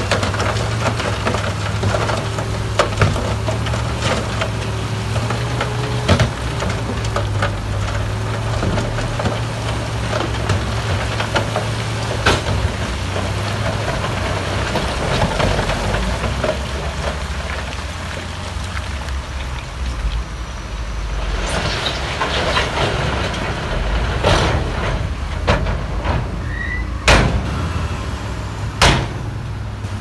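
Heavy diesel earthmoving machinery running steadily with a low rumble, with scattered knocks and clanks; two sharp bangs near the end are the loudest sounds.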